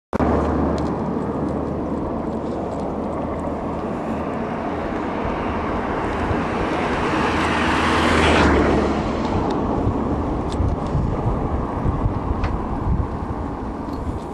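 Engine and road noise from a vehicle driving along a road, with a low steady hum. The noise builds up to about eight seconds in, then drops off suddenly.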